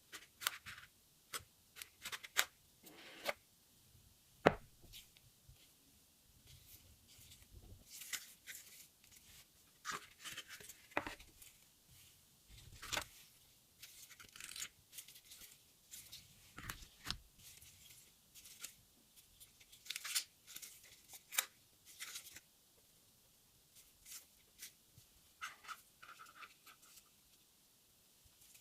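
Unboxing a smartphone: irregular taps, clicks and short rustles of a cardboard box and plastic packaging being opened and handled.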